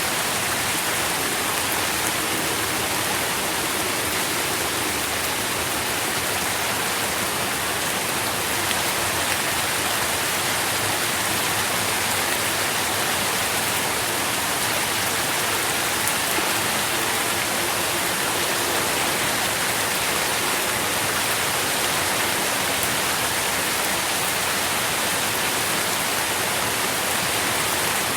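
Steady rain falling on leaves and the ground, a dense even patter with faint scattered drop ticks.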